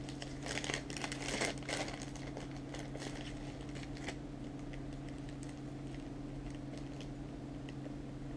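Clear plastic bags crinkling as they are handled and opened, densest in the first two seconds, then a few faint rustles and clicks, over a steady low hum.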